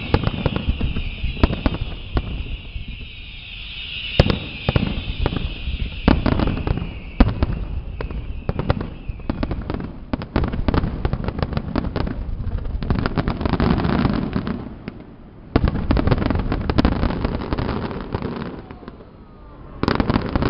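Fireworks display: aerial shells bursting one after another, the bangs coming thicker and faster into a continuous barrage from about halfway through, with a steady high hiss over the first half.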